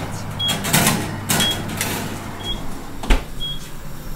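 Kitchen clean-up clatter: cookware and utensils being handled and put away, with a sharp knock about three seconds in. Under it runs a steady low hum, and a short high beep repeats about once a second.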